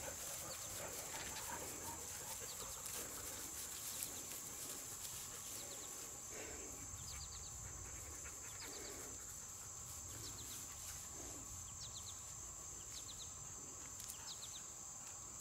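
Faint outdoor ambience: a steady high-pitched insect drone, with a bird calling in short quick chirps every second or two from about five seconds in.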